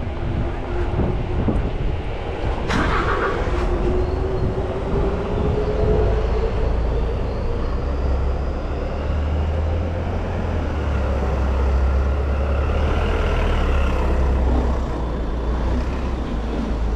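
Street traffic noise with a truck's engine running close by. A whine rises in pitch over the first several seconds, a short hiss comes about three seconds in, and a low engine rumble is strongest in the middle.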